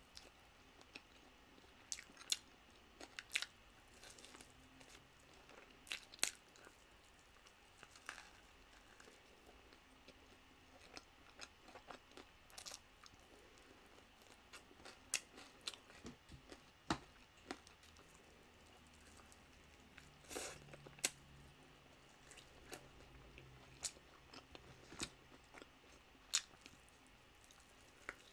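Close-miked eating of chicken wings: biting into the meat and chewing, faint, with sharp crunches scattered irregularly through it.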